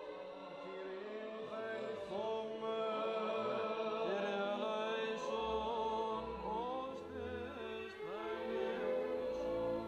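Voices chanting a Greek Orthodox hymn: a melody winding over steady held notes. A low rumble comes in about halfway.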